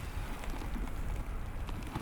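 Strong wind buffeting the microphone in a steady low rumble during a snowstorm, with the walker's footsteps crunching in fresh snow.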